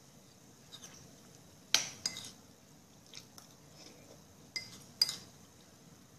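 Cutlery clinking against a dish during a meal: four sharp clinks with a short ring, the loudest about two seconds in and about five seconds in.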